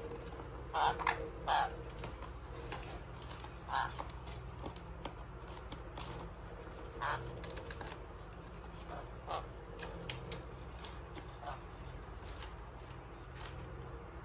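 Sun conures giving short, harsh calls: three close together about a second in, then single calls every two or three seconds, with light clicks between.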